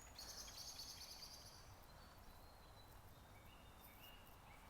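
Faint birdsong: a high warbling call in the first second and a half, then short, thin whistled notes, over a faint low rumble.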